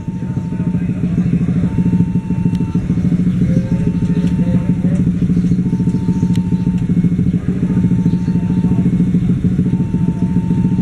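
Diesel-electric locomotive hauling a passenger train, its engine running with a steady, low, pulsing drone as it approaches. Over it, a level-crossing warning signal sounds a single-pitched tone that switches on and off about once every two seconds.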